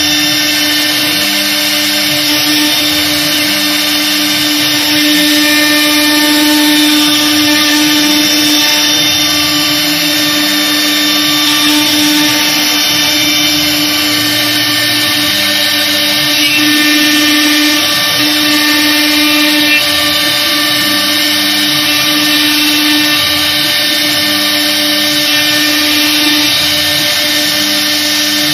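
Air-cooled CNC router spindle running at speed with a steady whine while its bit carves grooves into a fiberboard panel. The cutting noise swells slightly as the head moves along the design.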